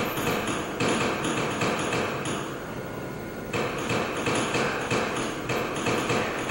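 Repeated metallic tapping, like hand tools working a small metal part, coming from a video installation's soundtrack.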